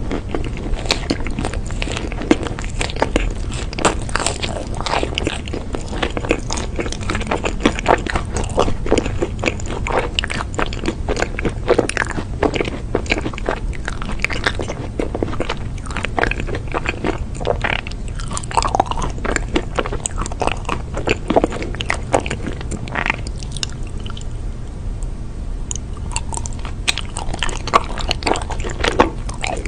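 Close-miked biting and chewing of chocolate-coated ice cream, with many small crackles and crunches from the chocolate shell breaking between the teeth, then wet chewing.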